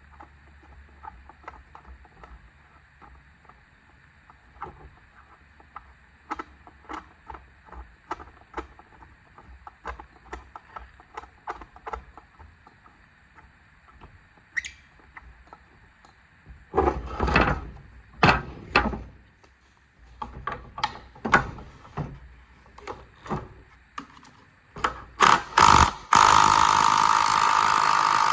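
Metal tools working on a small two-stroke blower engine: scattered clicks and clinks, with a run of louder knocks about two-thirds of the way through. Near the end a power tool starts up and runs loudly and steadily.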